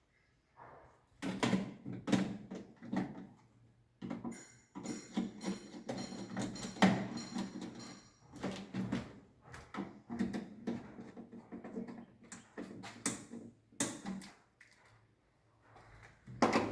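Plastic miniature circuit breakers clattering and clicking against one another as they are picked up, sorted and set down, a rapid irregular run of knocks and taps.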